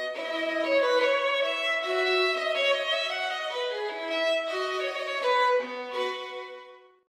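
Violin music playing a melody, fading out near the end.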